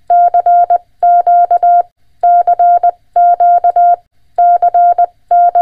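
Morse code (CW) sent as a single mid-pitched beep tone, keyed on and off in quick dots and dashes. It comes in six short groups, about one a second, like characters being spelled out.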